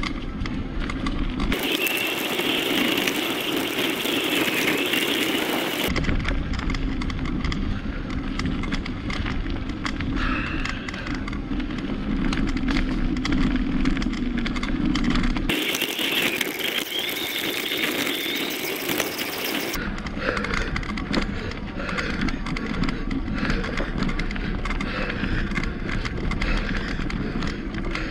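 Tyres rolling over a gravel path, with a constant crackle of grit and a steady rush of wind on the microphone.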